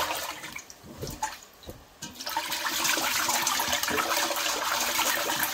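Water sloshing and swirling as a hand swishes rice around in a stainless steel pot of water, rinsing the starch out. Soft and patchy at first, then a steady, continuous churning from about two seconds in.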